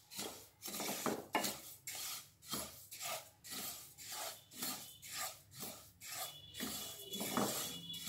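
Wooden spatula stirring sesame seeds in a non-stick kadhai during dry-roasting, scraping the seeds across the pan's surface in even strokes about twice a second.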